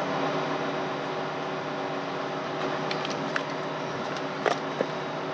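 An engine running steadily, giving a constant hum with a few faint clicks about four and a half seconds in.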